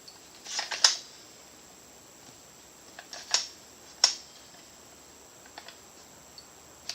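A few short plastic clicks and rattles from handling the staple gun between shots, the sharpest about four seconds in.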